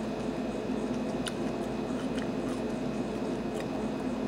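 Steady background hum made of several constant tones, with a few faint clicks as a metal fork picks salad out of a plastic container.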